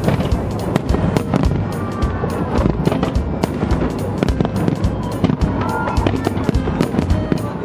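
Fireworks display: shells bursting in rapid, overlapping bangs, several a second, with music playing underneath.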